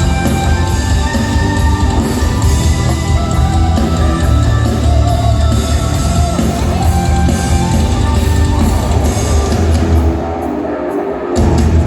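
Rock band playing live, loud and full, with singing. About ten seconds in, the drums and bass drop out for a moment, then crash back in just before the end.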